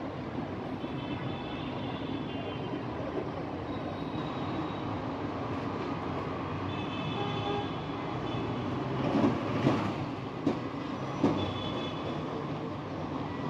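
Steady outdoor background rumble, like distant traffic, with short high-pitched toots now and then and a few sharp knocks about two-thirds of the way through.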